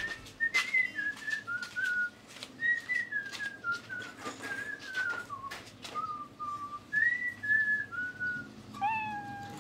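A person whistling a slow tune, one clear note at a time with small slides between them, over scattered light taps and knocks. Near the end a lower held note comes in.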